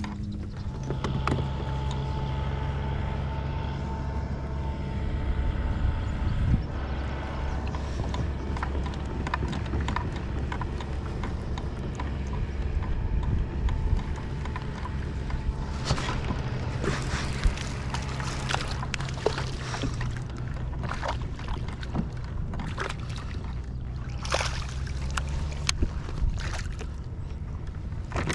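A boat motor running steadily with a low hum, and a thin whine over it in the first several seconds. Scattered clicks and knocks come through in the second half.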